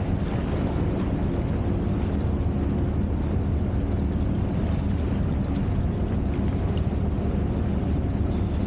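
A motorboat's engine running steadily under way, a low hum, with the rush of water churning in its wake.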